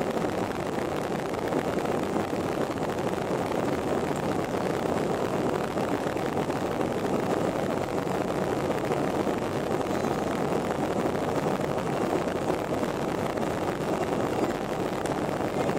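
Jet airliner's engines running steadily at low power as the plane taxis, heard from inside the passenger cabin as an even, unchanging noise with no spool-up.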